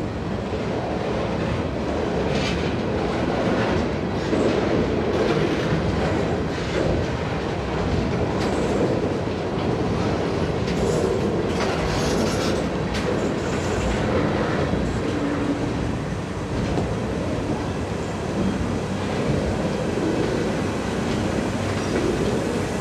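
Norfolk Southern freight train rolling slowly past, its wheels clicking over the rail joints with a steady rumble, and a few brief high wheel squeaks about halfway through.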